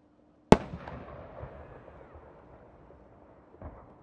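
A large 10-go triple-pistil chrysanthemum firework shell bursting overhead: one sharp boom about half a second in, followed by a long rolling echo that slowly fades. A second, smaller thump comes near the end.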